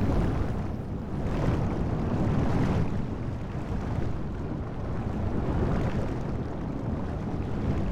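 Low rushing water noise, swelling and easing every second or two, that stops abruptly at the end.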